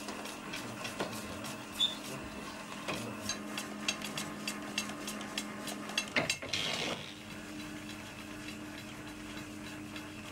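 Film editing table running: a steady motor hum under many irregular clicks and knocks from the mechanism and its controls. About six seconds in comes a brief rushing whir, after which the hum steadies with fewer clicks.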